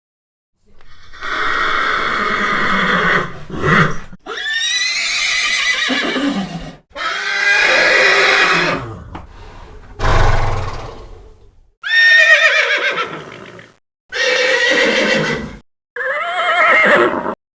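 Horses whinnying and neighing: about eight separate calls one after another, each with a shaking, quavering pitch, with short silent gaps between them.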